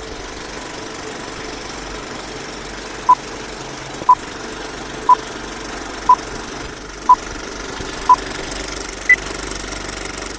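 Seven short electronic beeps, one a second: six at the same pitch, the seventh higher, like a countdown. They sound over a steady machine-like running noise.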